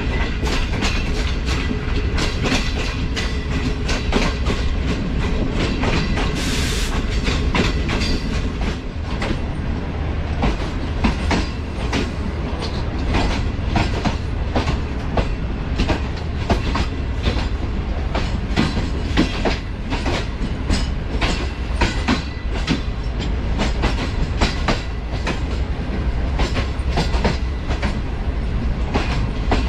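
Express train wheels running over rail joints and points with a steady rumble and many sharp, irregular clicks, as the train runs into a station. A brief hiss comes about seven seconds in.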